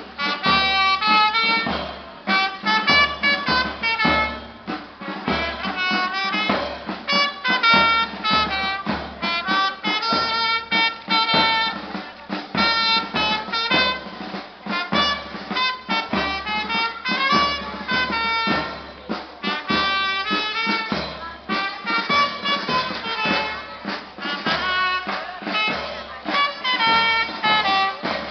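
Brass band music: a quick melody on horns over a steady drum beat.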